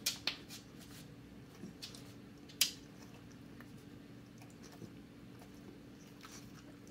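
Dachshund chewing and mouthing a piece of food, with a few faint crunches and clicks, the sharpest about two and a half seconds in.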